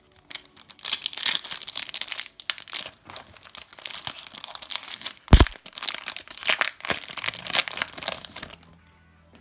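Foil trading-card booster pack wrapper crinkling as it is torn open and handled, with one loud thump about five seconds in.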